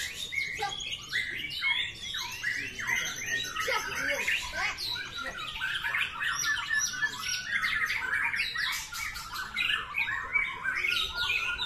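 Caged white-rumped shamas (murai batu) singing without a break: a dense run of quick rising and falling whistled notes and chattering phrases, overlapping from more than one bird.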